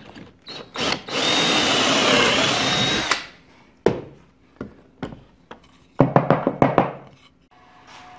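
Craftsman 19.2V cordless drill boring a pocket hole through a pine board in a pocket-hole jig: about two seconds of whirring, the motor's whine dipping in pitch as the bit bites and then recovering before it stops. Afterwards a scattering of knocks and clacks as the board and drill are handled.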